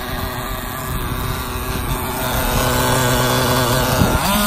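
Traxxas Jato 3.3 nitro RC car's small two-stroke glow engine running with a steady buzz. It gets louder about halfway through and revs up near the end.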